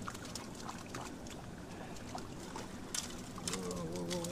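Shallow stream running over rocks, with scattered light clicks and knocks close by. About three and a half seconds in, a low humming tone with a wavering pitch starts up.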